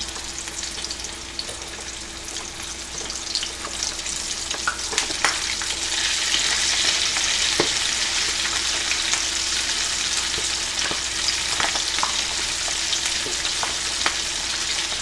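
Breaded chicken pieces frying in hot oil in a cast iron skillet, the sizzle swelling louder about six seconds in as more pieces go into the oil, with scattered small pops and knocks.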